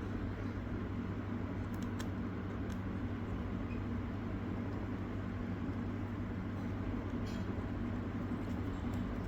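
Steady low hum with a few faint, short clicks from handling the tiny M.2 retaining screw by hand.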